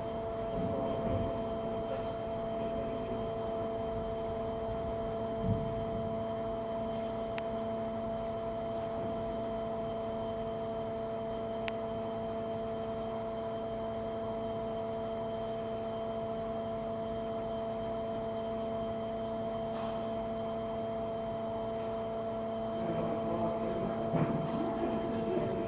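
Steady machine hum holding a few fixed tones, with a single knock about five seconds in and a few knocks and rattles near the end.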